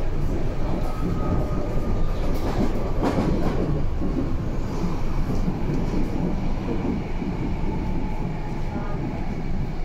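Berlin U-Bahn A3L71 train running between stations: a steady rumble of wheels on rail, with a sharper clack about three seconds in.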